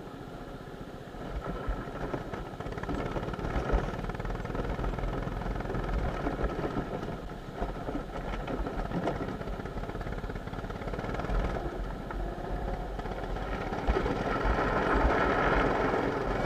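Go-kart engine running at speed, heard from a camera mounted on the kart.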